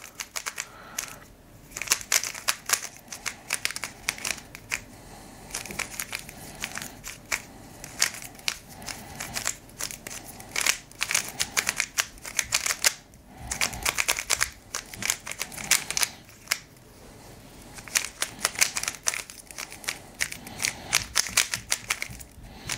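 A Moyu YS3 M 3x3 speedcube being turned rapidly by hand, its plastic pieces clicking and clacking in quick runs with a few short pauses. The cube is freshly lubricated and working in.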